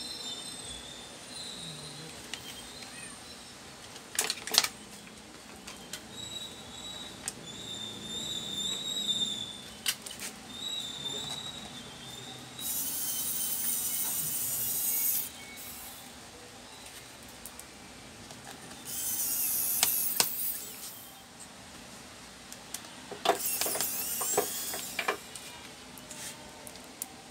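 Small electric screwdriver whirring in three runs of about two seconds each as it works on the hinge screws of an Acer Nitro 5 laptop, with a sharp click from the parts being handled about four seconds in.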